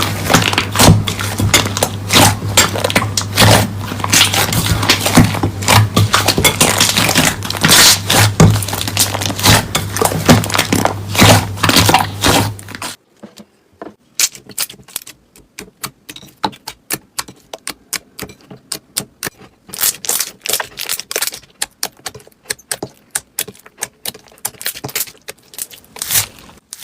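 Slime being squeezed and pressed by hand, giving dense crackling and popping over a low hum. About halfway through it changes abruptly to quieter, sparser pops and clicks.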